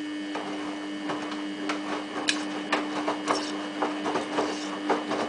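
Samsung WF8804RPA front-loading washing machine's drum turning in the first rinse: a steady motor hum with irregular knocks of wet laundry tumbling in the drum.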